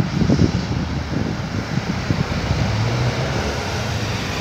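Distant Airbus A330 airliner on approach: a steady low jet rumble with uneven low buffeting mixed in.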